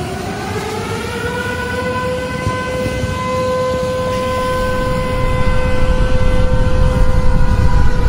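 Civil-defense warning siren winding up in pitch over the first couple of seconds, then holding one steady tone. Beneath it a low rumble grows louder toward the end.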